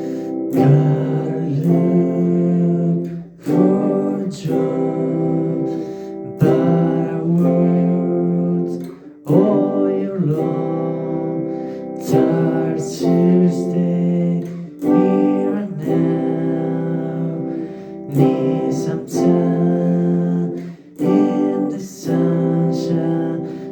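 Acoustic guitar strumming chords in a steady rhythm, instrumental with no vocals.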